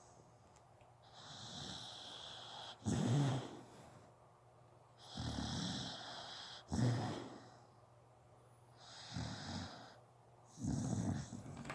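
Dog snoring in its sleep: three slow breaths about four seconds apart, each ending in a short, louder snort.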